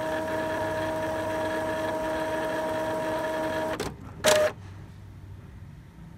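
Epson L-series EcoTank inkjet printer running a print-head cleaning cycle, its motor giving a steady whine that cuts off about four seconds in. A brief loud burst follows a moment later, then only a faint hum.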